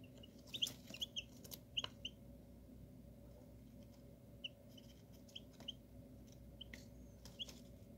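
Newly hatched chicks peeping softly: short, high cheeps in scattered clusters, busiest in the first two seconds.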